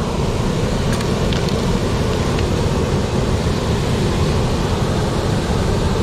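Mountain stream water rushing steadily over rocks, a loud, even hiss of flowing water.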